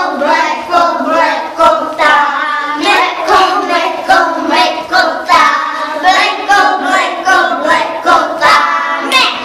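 A group of young children singing a song together, with a woman's voice singing along and leading them.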